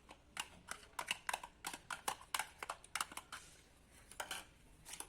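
Quick, irregular clicks and taps of a kitchen utensil against a dish, with a short ring on some strikes, while the salad dressing is being mixed; they thin out after about three and a half seconds.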